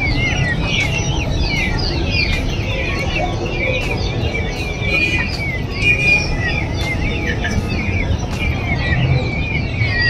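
A cage of young peafowl chicks peeping continuously, many short chirps overlapping, over a steady low hum.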